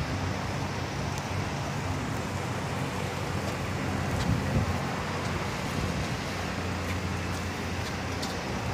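A steady, even low engine rumble with a background hiss.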